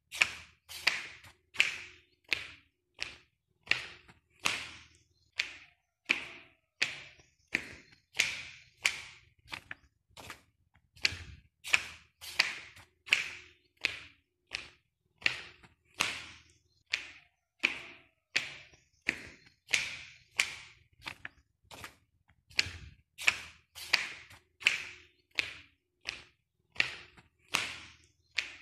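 Footsteps walking at a steady, even pace: sharp, short steps, about one and a half a second.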